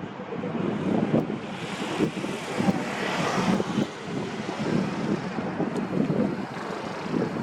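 Strong wind buffeting the microphone in gusts. A broader rushing hiss swells about two seconds in, peaks near three seconds and fades by about four seconds.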